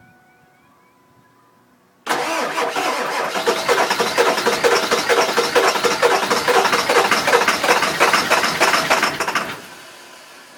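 Starter motor cranking a 7.3 L V8 diesel in a 2000 Ford F-250 with a fast, even rhythm. It starts suddenly about two seconds in and cranks for about seven seconds, then stops without the engine catching: a no-start, with the injectors suspected.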